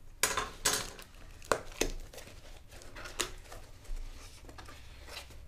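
A small cardboard box being handled and opened by hand, with a utility knife put down on the table: a run of sharp taps and clicks with scraping and cardboard rustling in between.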